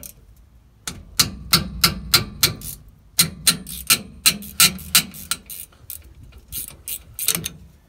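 Irregular metallic clicks and clunks, a few a second, from a hand working the rusted rear brake caliper of a 2007 Ford F-150 whose caliper bolts have just been cracked loose. They begin about a second in and stop shortly before the end.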